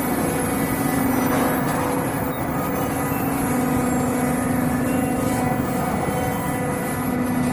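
Roll forming machine running as it forms steel C-channel purlin: a steady motor hum with one held low tone and a hiss above it.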